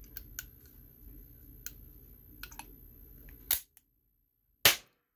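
A reloaded small pistol primer, recharged with homemade priming compound, going off with a single sharp pop in a pistol about four and a half seconds in: the primer fires. Before it come light clicks of the pistol being handled.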